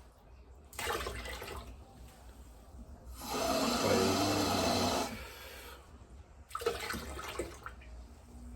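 Water being measured out by the cup and poured into a bowl of maize meal for pap, in separate pours with short pauses between. The loudest run of water comes just past the middle.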